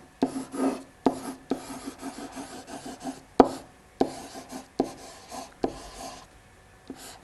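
A pen scratching on paper as a word is handwritten, with sharp taps where the pen comes down to start strokes. The writing thins out about a second before the end.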